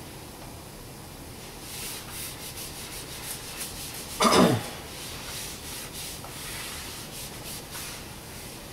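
Whiteboard eraser rubbing across a whiteboard in repeated wiping strokes, erasing marker writing. About halfway through, one brief louder sound with a falling pitch.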